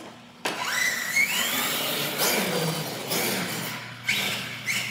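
Electric radio-controlled monster truck's motor and drivetrain whining as it accelerates hard. The sound starts suddenly about half a second in, rises quickly in pitch, and comes back in several rising bursts as the throttle is blipped.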